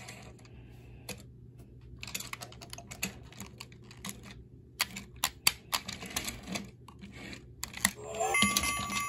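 Hard plastic VTech toy train handled and pushed along a surface by hand: irregular clicks and ticks from its plastic body and wheels. Near the end a short electronic tune from the toy begins.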